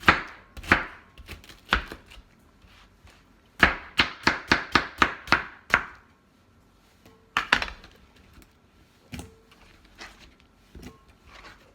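Sharp kitchen knife chopping fresh pineapple into chunks on a cutting board: a few strikes at the start, a quick run of about nine chops at roughly four a second a few seconds in, a couple more about halfway through, then only faint taps.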